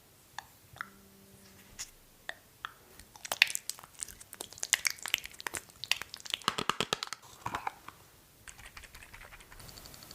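Skincare products being handled at close range: a few sharp clicks, then a dense run of crisp clicks and crackles in the middle, easing into faint quick ticks near the end.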